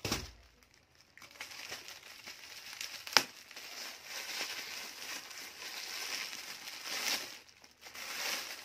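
Clear plastic packaging crinkling and rustling as a folded suit piece is handled and unwrapped, with a thump at the start and one sharp snap about three seconds in.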